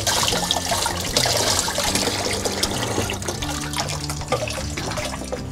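Water running from a kitchen tap into a sink as green onions are rinsed under the stream, the splashing strongest in the first half and easing off after about three seconds.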